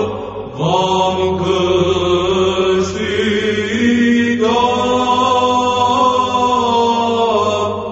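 Orthodox church chant sung in Romanian: voices hold long, drawn-out notes over a steady low drone. There is a short break about half a second in and a brief dip around the middle.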